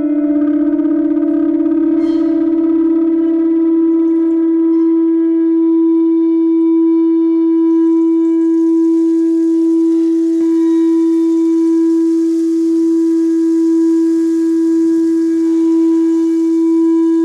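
A single held tone from free-improvised guitar-and-drums music, unwavering, with faint overtones above it. From about eight seconds in, a soft high hiss joins it.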